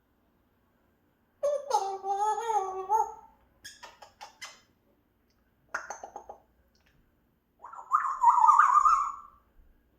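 African grey parrot calling: a pitched, wavering call, a quick run of clicks, a short call, then a louder, higher wavering call near the end.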